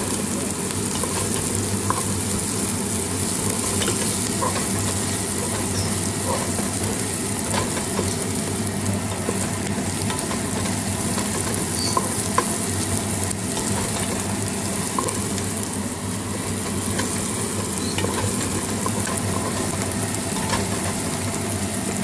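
Sliced onions and ginger sizzling as they sauté in oil in a pot, stirred with a wooden spatula that scrapes and taps the pan now and then, over a steady low hum.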